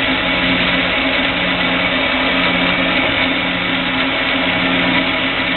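9-inch swivel-base band saw running unloaded, its motor and blade drive making a steady hum with a high whine.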